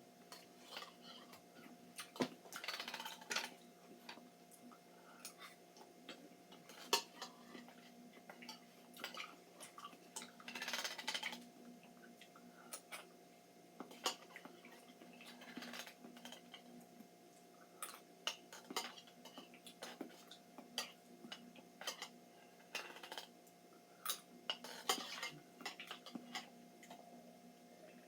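Cutlery clinking and scraping at irregular intervals while eating canned pears, with short wet eating sounds between the clicks.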